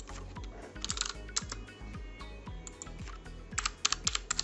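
Computer keyboard typing: short runs of keystrokes about a second in and again near the end, as text is entered into a form. Under it runs quiet background music with a steady repeating beat.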